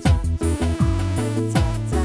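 Electronic background music with a heavy bass line, falling bass sweeps and a steady beat.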